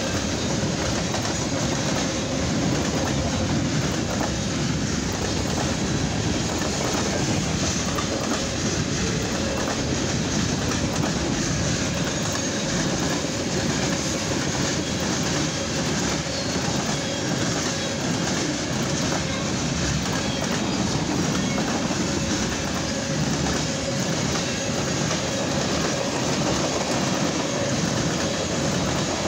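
Freight cars of a mixed freight train, boxcars and tank cars, rolling by at steady speed: steel wheels clattering over the rails in a continuous clickety-clack, with a faint steady wheel squeal under it.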